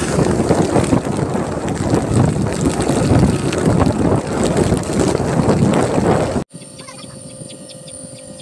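Wind rushing over the microphone of a motor scooter riding down a rain-wet road, mixed with the scooter's running. It cuts off abruptly about six and a half seconds in, giving way to a much quieter steady hum from a nebulizer compressor.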